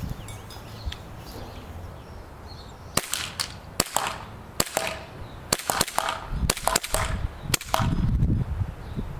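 WE Tech 1911 gas blowback airsoft pistol firing a quick string of about a dozen sharp shots, starting about three seconds in, with a low rumble underneath near the end.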